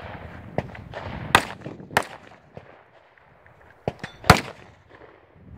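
Rifle shots on an IPSC stage: sharp cracks at about one and a half seconds, two seconds and, loudest, a little past four seconds, with fainter pops between. Footsteps on sandy ground come before the first shot.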